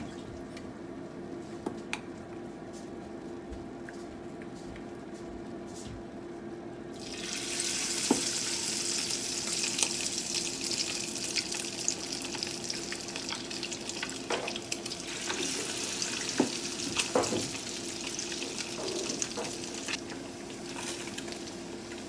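Kisu (Japanese whiting) tempura frying in hot oil: after about seven seconds of a steady hum and a few light clicks, a loud sizzle starts suddenly as the battered fish goes into the oil and carries on hissing, with crackles and occasional clicks.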